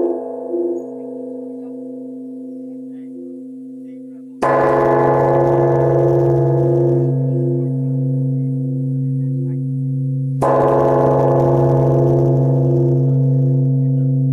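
Large bronze temple bell struck with a swinging wooden log striker, twice: about four seconds in and again about six seconds later. Each strike sets off a long, low ring that holds on with a slow wavering pulse, and the ring of an earlier strike is fading at the start.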